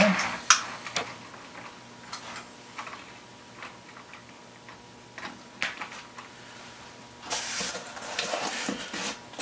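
Scattered light clicks and taps as a Lionel milk car is handled and set down on toy train track, its metal wheels and trucks knocking against the rails, over a faint steady hum. A louder rustling handling noise comes near the end.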